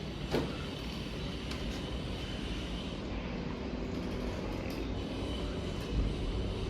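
Steady low background rumble, with a light click shortly after the start and a soft thump near the end.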